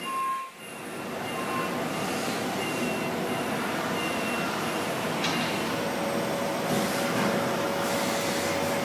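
Steady machining noise from an air turbine spindle cutting metal, a broad rushing hiss with a brief dip about half a second in. A steady mid-pitched whine joins about six seconds in.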